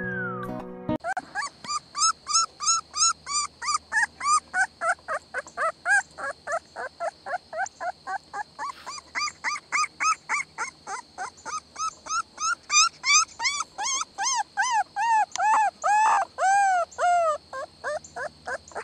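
Yellow Labrador puppy yipping in a fast run of short, high cries, about three a second, each one rising and falling in pitch. Toward the end the cries drop lower and draw out a little longer.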